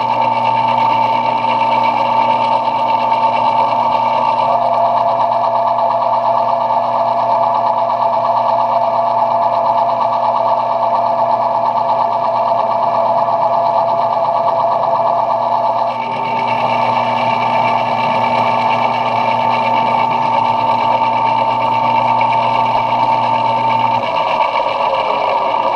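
Metal lathe running while machining brass knob stock: a steady machine noise with a high whine that drops to a lower pitch for a while and then returns. Near the end the low motor hum stops and a falling tone follows.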